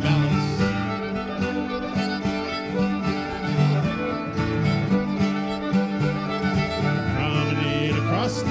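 Live old-time string band music: a fiddle leads a reel over acoustic guitar at a steady dance beat.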